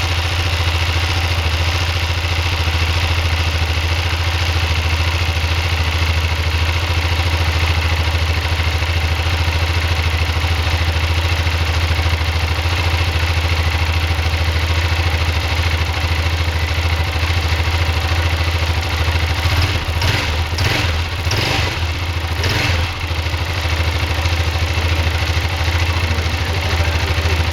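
Yamaha XT660's single-cylinder engine idling steadily, warming up from a cold start. About twenty seconds in, a few brief knocks break in over the idle.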